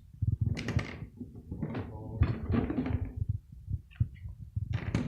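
Parts and packaging being handled while unpacking a boxed pressure washer: a string of irregular knocks, thuds and rustles, with a short scrape about two seconds in.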